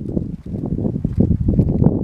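Wind buffeting the microphone: a loud, uneven low rumble that gusts up and down.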